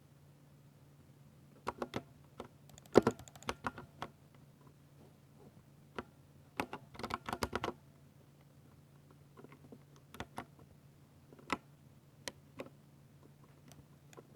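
Typing on a Ducky 60% mechanical keyboard with silver switches: irregular keystrokes, some in quick flurries and some single, over a faint low steady hum.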